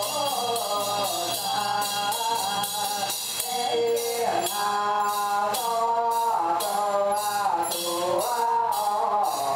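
Buddhist devotional chanting: a melodic chant over steady percussion strokes, about two or three a second.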